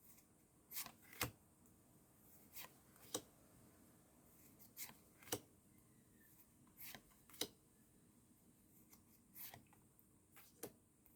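Pokémon trading cards being slid and flicked one at a time from a pack: faint, irregular soft clicks and brushes of card stock.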